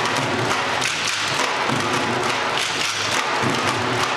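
A group of street drummers playing a dense, continuous rhythm of drum hits.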